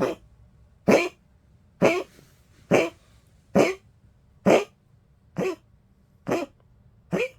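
A 15-year-old poodle coughing over and over, nine short, sharp coughs about one a second, the persistent cough of an old dog.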